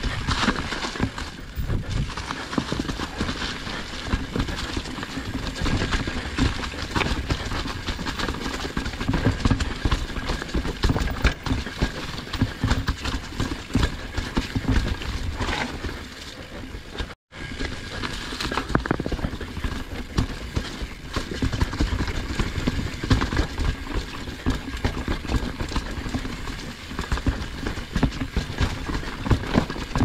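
Mountain bike riding fast down a rocky trail: a constant irregular clatter and rattle of tyres hitting rocks, with the chain and frame shaking. The sound cuts out for an instant a little past halfway.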